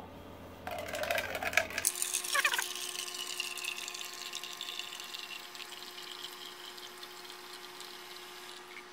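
Keurig K Elite brewer pumping hot water through its spout into a cup during a cleansing brew. The flow starts about a second in and is loudest at first, then settles into a steady stream of water with a light pump hum.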